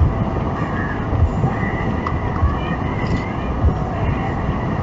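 A car driving, its steady road and engine rumble heard from inside the cabin.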